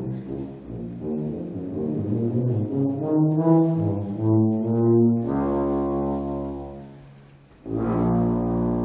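Military concert band playing a tuba feature piece, with low brass prominent: a run of moving notes, then a held chord that dies away, and after a brief pause a loud full-band chord held near the end.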